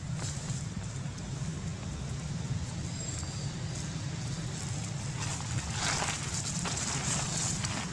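A steady low rumble, with dry leaves rustling in short bursts through the second half as a young macaque moves about on the leaf litter.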